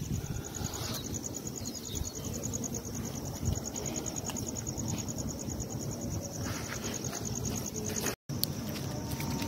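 Crickets chirping in a steady, rapid high-pitched pulse, over a low rumbling noise. The sound cuts out for an instant near the end.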